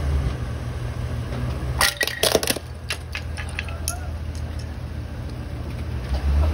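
Plastic electric pencil sharpener cracking and shattering under a dually pickup truck's tire: a quick burst of sharp cracks about two seconds in, then a few smaller snaps. The truck's engine runs low and steady underneath.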